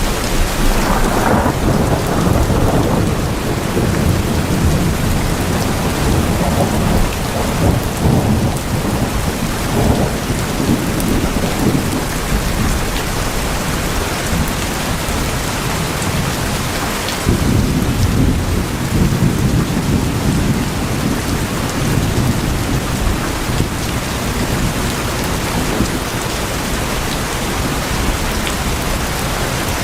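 Steady heavy rain drumming on tin roofs, with low rolls of thunder swelling up about a second in and again just past halfway.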